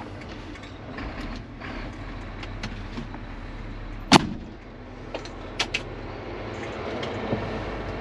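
Excavator's diesel engine running steadily, heard from inside the cab, with one sharp clunk about four seconds in and a couple of lighter clicks soon after.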